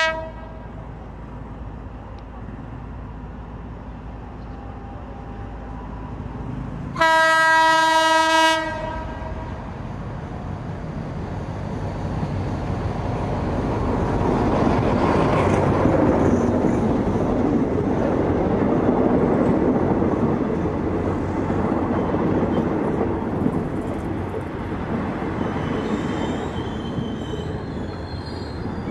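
A State Railway of Thailand diesel locomotive's horn gives a brief toot at the start and a long, loud blast about seven seconds in. Then the locomotive and its passenger coaches run slowly past, engine and wheels on the rails growing louder, with a high squeal from the running gear near the end.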